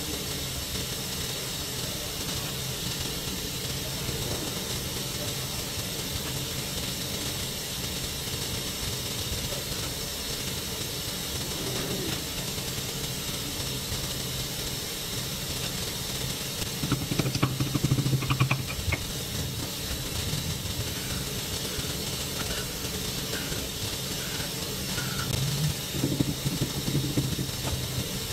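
Steady machine-shop background hiss and hum. Knocking and clatter, like tools or parts being handled, come about two-thirds of the way in and again near the end.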